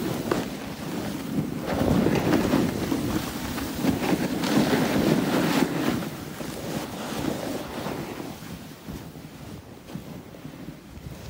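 Wind buffeting the microphone over the rushing hiss of snowboards sliding through deep powder snow, louder for the first six seconds and easing after that.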